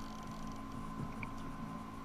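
Steady electrical hum with a thin, steady high whine over it, and a few faint ticks.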